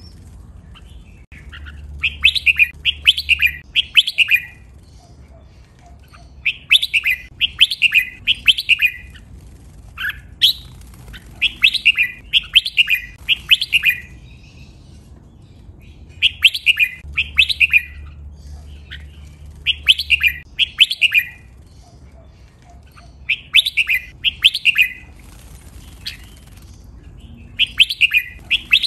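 Red-whiskered bulbul singing: short phrases of quick, clear whistled notes, each phrase lasting a second or two and repeated every few seconds.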